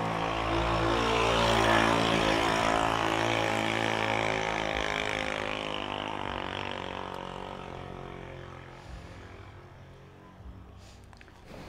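A passing vehicle's engine with a steady low hum, loudest about two seconds in, then fading gradually away.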